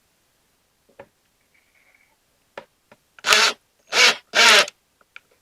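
A few light clicks, then three short rasping, grinding bursts as a screw is forced into wood without a pilot hole and fails to go in.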